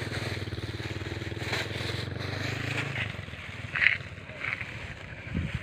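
A small engine runs steadily, then fades out about three seconds in. A few short crinkles of a thin plastic bag being handled follow.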